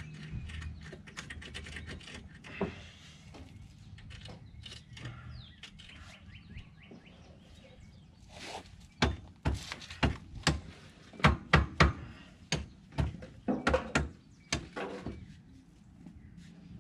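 A string of sharp metallic knocks and clicks, about a dozen at uneven intervals starting about halfway through, from hand tools working on a brake caliper bracket bolt.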